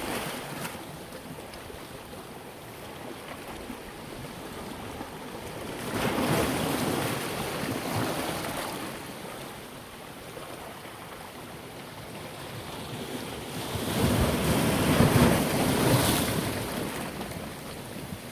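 Sea waves breaking on the shore, two larger waves swelling and washing in, one about a third of the way in and one near the end, over a steady surf hiss, with some wind on the microphone.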